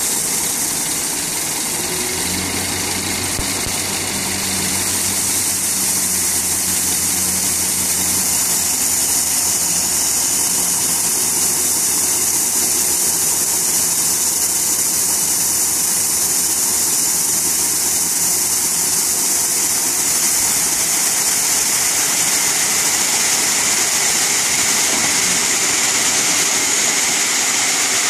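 Tipper truck's diesel engine running steadily while the hydraulic hoist raises the body, with a continuous rushing hiss of gravel pouring out of the tailgate onto a growing pile.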